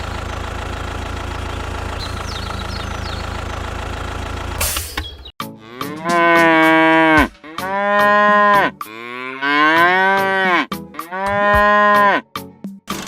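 An engine runs steadily for the first four and a half seconds, then stops. A cow then moos about four times, each call long and loud, rising and falling in pitch.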